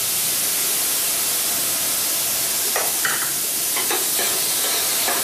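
Minced beef with diced carrot, celery and onion sizzling steadily in a stainless steel pan as tomato is ladled in, with a few short scrapes or knocks of a utensil in the pan from about three seconds in.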